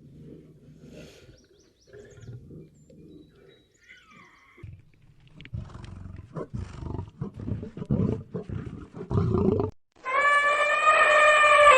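A large animal's low, rough grunts and rumbles in irregular bursts, then, about ten seconds in, a loud, long, trumpet-like call that drops in pitch as it ends.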